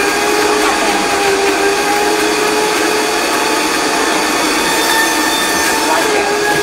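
High-powered countertop blender motor running steadily at speed, with a loud whine, as it purées frozen banana chunks and peanut butter into banana 'nice cream'.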